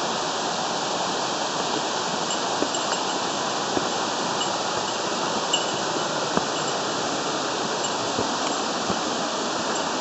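Steady rushing of a waterfall and mountain stream, heard close by from the lip of the falls. A few faint knocks of footsteps on wooden log steps come through it.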